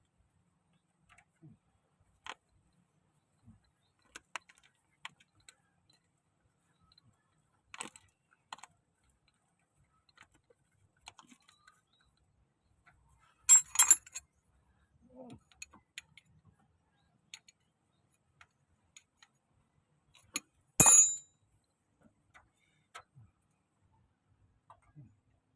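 Metal tools and parts clinking and knocking during hands-on work, scattered light clicks with two louder metallic clatters, one about halfway through and another near the end.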